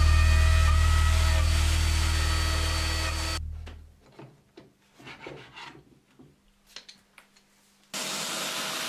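Plunge router and its dust-extraction hose running with a steady drone and high whine, fading over the first three seconds and then cutting off. A few seconds of faint rubbing and handling sounds follow, and a steady hiss starts abruptly near the end.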